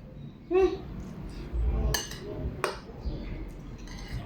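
Cutlery clinking against dishes: a few sharp clinks about two, two and a half and four seconds in, with a short hum of voice near the start.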